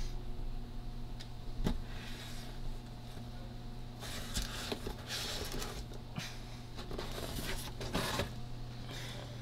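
Cardboard box scraping and rustling as it is slid down out of a ceiling hatch, with a few sharp knocks and clicks. A steady low hum runs underneath.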